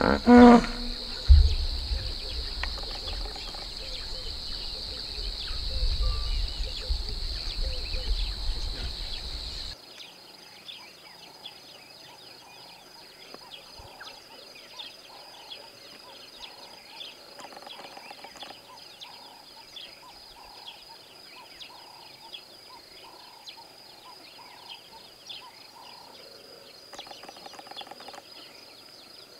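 Outdoor ambience with a steady high insect buzz throughout. For the first ten seconds a low rumble lies under it, which cuts off abruptly. Right at the start a loud pitched animal call ends and a sharp knock follows about a second in; after the rumble stops only the quieter buzz, small ticks and faint scattered bird calls remain.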